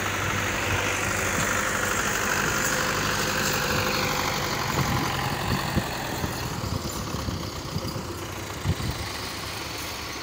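Several diesel farm tractors running together at idle, a steady low engine sound that eases off a little about halfway through, with a few short low knocks near the end.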